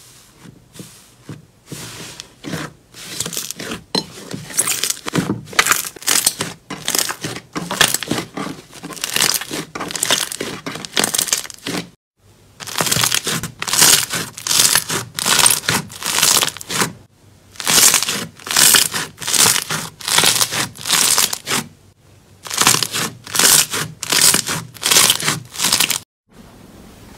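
Hands pressing and squeezing thick slime, making quick runs of crackles and pops, several a second. The sound stops briefly twice, about twelve seconds in and again near the end.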